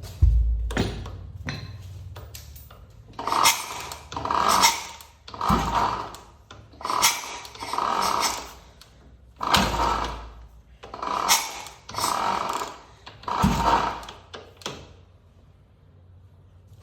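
An old-model Royal Enfield Bullet's single-cylinder engine cuts out with a heavy thud. Then comes a series of about a dozen short rubbing, whooshing noises from work on the bike, three of them with a low thud, before it goes quiet near the end.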